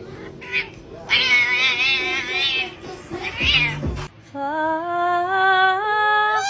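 Domestic cat yowling: a long warbling meow about a second in and a shorter one near three and a half seconds. After about four seconds it gives way to a long held note that steps up in pitch.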